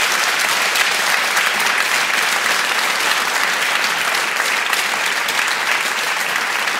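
A studio audience applauding steadily, a dense crackle of many hands clapping.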